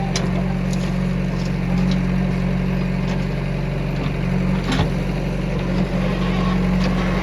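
Diesel engine of a JCB 3DX backhoe loader running steadily under work while loading mud, with a few short sharp clanks.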